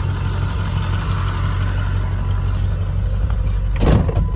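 Ford F-350 Super Duty pickup engine idling steadily, with a short loud thump about four seconds in.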